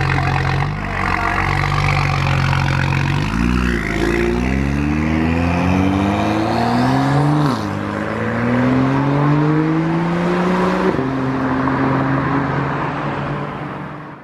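Car engine running steadily at low revs, then accelerating hard: the pitch climbs, drops at an upshift, climbs again and drops at a second upshift, then it fades out at the very end.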